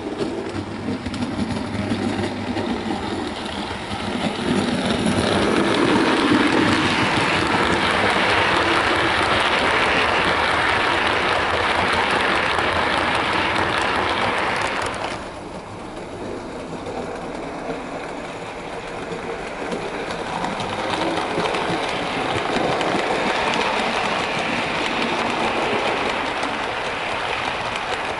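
Bachmann Caledonian Railway 812 Class model steam locomotive and its rake of model coaches running on the layout track: the rumble and clatter of small wheels on the rails, growing louder as the train comes close. It drops suddenly about halfway through, then builds again as the train runs past once more.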